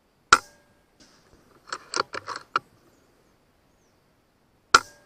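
FX M4 precharged pneumatic air rifle firing twice, about four and a half seconds apart, each shot a single sharp crack. In between, a quick run of clicks as the action is cycled to chamber the next pellet from the magazine.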